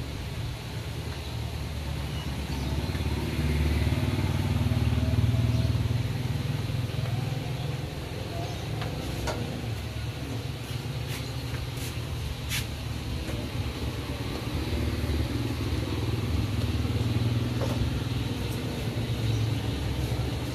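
Motorcycles and other road traffic passing close by, a low engine rumble that swells twice as vehicles go past, with a few light clicks in between.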